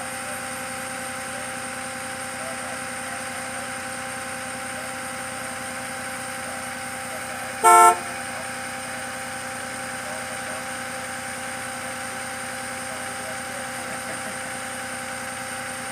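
A vehicle engine, the flatbed tow truck's, idling steadily. About eight seconds in, a vehicle horn gives one short toot, the loudest sound.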